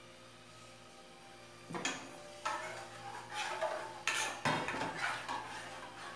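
A utensil clinking and scraping against a small pan, a run of clatters starting about two seconds in, loudest around the middle.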